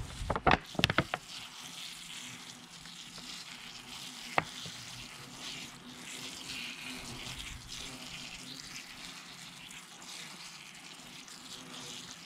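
Fine spray from a watering can's rose showering onto compost in a plastic plant pot: a steady, even hiss, with a few clicks in the first second and one sharp click about four seconds in.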